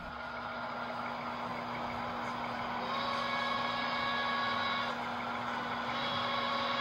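HO scale model of a Pennsylvania Railroad streamlined K4 steam locomotive, its Tsunami 2 steam sound decoder playing locomotive sounds through the model's speaker over a steady hum, slowly growing louder as it approaches. A held multi-tone whistle sounds from about three seconds in to near five seconds and starts again about a second later.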